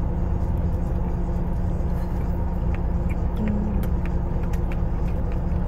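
Car engine idling steadily, heard from inside the cabin, with a few faint small clicks over it.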